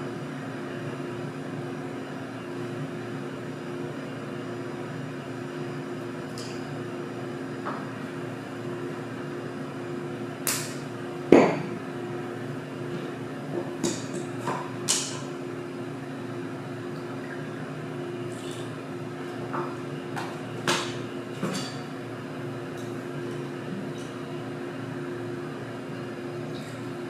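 Glassware and bar tools being handled: scattered knocks and clinks, the loudest about eleven seconds in, over a steady low hum.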